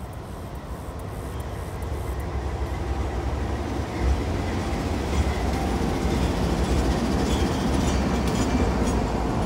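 Freight train's diesel locomotives passing close on a bridge overhead: a deep engine rumble that grows steadily louder over the first few seconds, with the wheels running on the rails.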